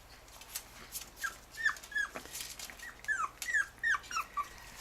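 A puppy whimpering: a string of short, high whines, each falling in pitch, about ten of them over three seconds, with light clicks in between.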